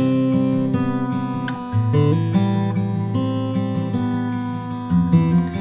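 Background music: acoustic guitar strummed in a steady rhythm, changing chords every second or so.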